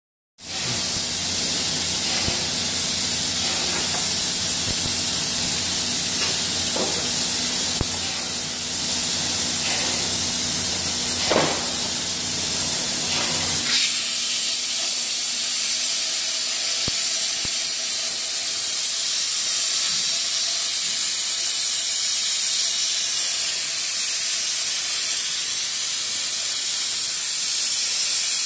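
DR-T300 hot air welding machine running, its hot-air nozzle giving a steady, loud high hiss. A low machine hum underneath cuts off about fourteen seconds in, while the hiss carries on; a few light clicks come in the first half.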